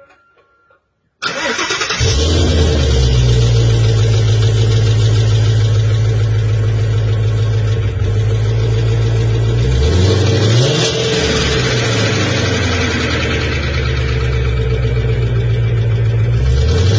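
2020 Shelby GT350's 5.2-litre Voodoo flat-plane-crank V8 starting about a second in, then idling steadily, with brief changes in engine speed around ten seconds in and again near the end. The owner suspects piston slap.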